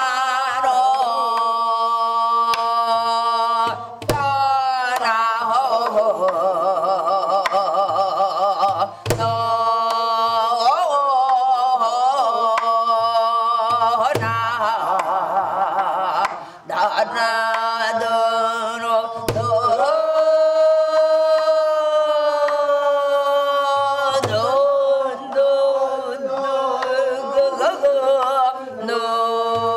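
Korean traditional music: a voice sings long held notes that slide and shake with wide vibrato, over low drum strokes every few seconds, in the style of pansori or gueum singing with a buk barrel drum.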